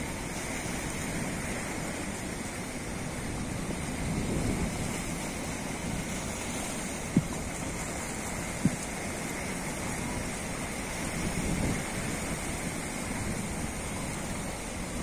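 Steady rushing wash of water along the hull of a moving outrigger fishing boat, with two short sharp knocks about a second and a half apart a little after the middle.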